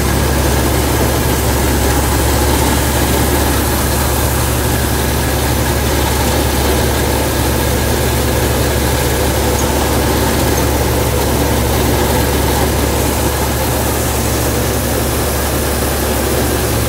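Combine harvester running at a steady, unchanging pace, its engine and machinery droning while the unloading auger pours sunflower seed onto a heap.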